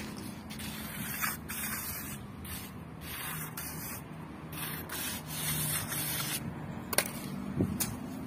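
Steel trowel scraping across a wet sand-and-cement floor screed in repeated short strokes as the mortar is smoothed, with a sharp knock about seven seconds in.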